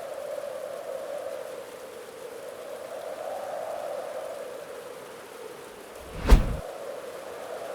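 Steady rushing of water, with a single sharp thump about six seconds in.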